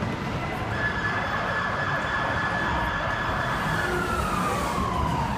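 Emergency vehicle siren holding one high note for about three seconds, then sliding steadily down in pitch, over constant city street noise.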